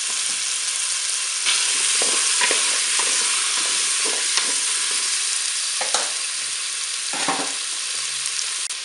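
Beef meatballs and courgette pieces sizzling in melted butter in a Cookeo multicooker bowl on its browning setting, with a steady hiss. A wooden spatula stirs them, knocking and scraping against the bowl now and then.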